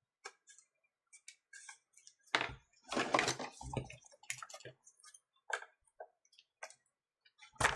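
Irregular small clicks and plastic scraping from a tablet's plastic back cover being worked loose, with a burst of louder scraping and rattling about two to four seconds in and a sharp click near the end.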